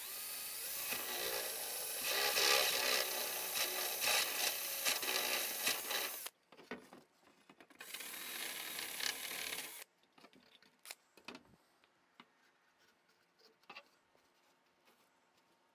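Power drill with a step drill bit cutting through fiberglass, spinning up with a rising whine and grinding steadily for about six seconds, then a second shorter burst of about two seconds. Afterwards only a few light clicks and taps.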